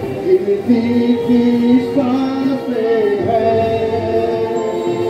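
Voices singing a Hindi song together in long, held notes that step from pitch to pitch.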